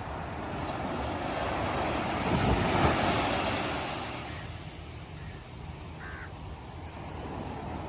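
Ocean surf: a wave breaking on the beach, swelling to its loudest about two and a half seconds in, then washing out and subsiding.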